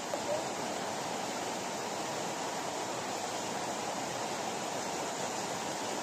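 Steady rushing of a waterfall pouring into its plunge pool.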